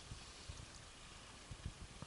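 Faint outdoor background with a steady soft hiss of wind on open water. A few soft low thumps come about half a second in and again near the end.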